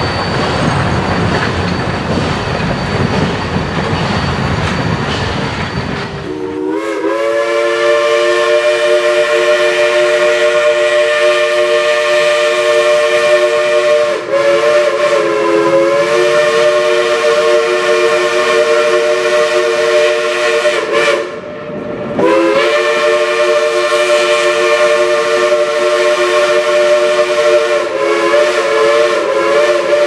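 Rumble and clatter of rail cars rolling past, then a steam locomotive's chime whistle blowing long, several notes held together. It breaks briefly about 14 seconds in, stops for a second around 21 seconds, and sounds again to the end.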